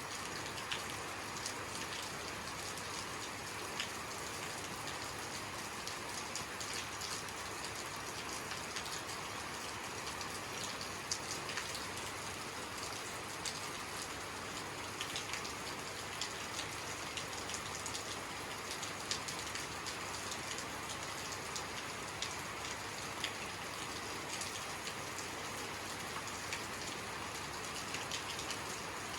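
Steady rain falling, a continuous hiss with many individual drops ticking sharply on a surface throughout.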